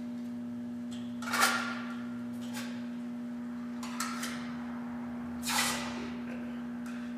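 Small sheet-metal pieces handled on a steel welding table: three short handling noises, the first, about a second and a half in, the loudest, over a steady low hum.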